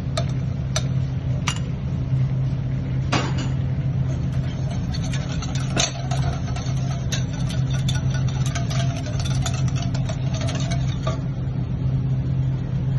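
Wire whisk clicking and scraping against a stainless steel saucepan as chunks of butter are whisked into an orange sauce reduction, over a steady low machine hum. The clicks come scattered, thickening in the middle.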